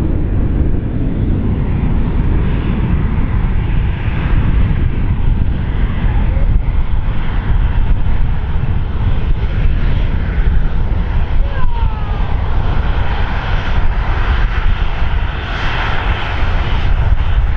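Boeing 787-8's two Rolls-Royce Trent 1000 turbofans at takeoff thrust on the takeoff roll: a loud, steady jet rumble. It grows brighter and hissier near the end as the aircraft rotates and lifts off.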